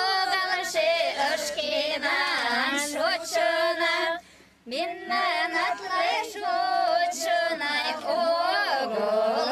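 Women's voices singing a Mari folk song together without instruments, with a brief break between phrases about four seconds in.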